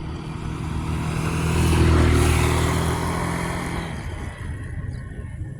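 A motor vehicle passing close by. Its engine and road noise swell to a peak about two seconds in, then fade away.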